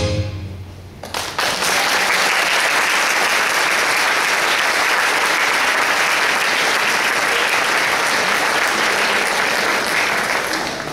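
Audience applauding. It breaks out about a second in, holds steady, and begins to die down near the end.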